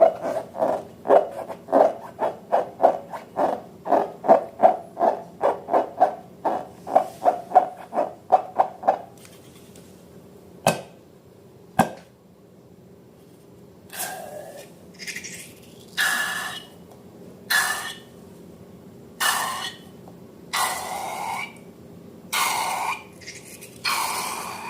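Slime being squished and poked by hand: a fast run of short wet pops, about three a second, then two single clicks, then several longer, slightly squeaky squelches about a second each.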